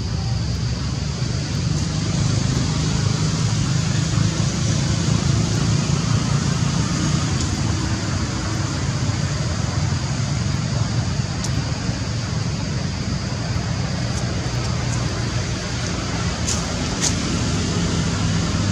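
Steady low, engine-like rumble under a constant high hiss, with a couple of sharp clicks near the end.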